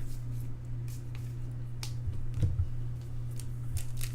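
Faint, scattered clicks and taps of trading cards being handled and sorted, over a steady low electrical hum.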